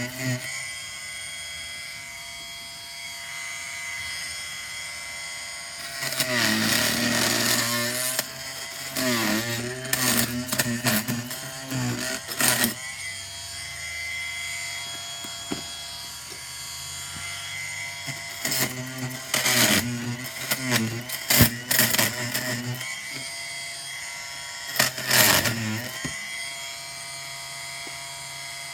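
Oscillating multi-tool running with a steady high buzz. Four times it gets louder and rougher with a wavering pitch as the blade bites into the old upholstery fabric being stripped from a chair.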